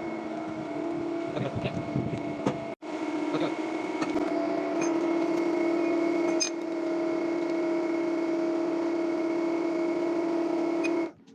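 A motor or engine running steadily with a constant hum. It drops out for an instant about three seconds in and cuts off suddenly near the end.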